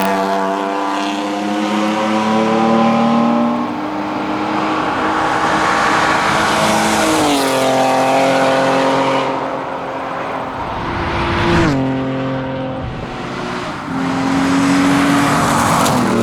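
BMW 325e rally car's engine pulling hard at speed, its pitch dropping sharply twice, about halfway and again about three quarters in, then climbing again near the end, over steady tyre and road noise.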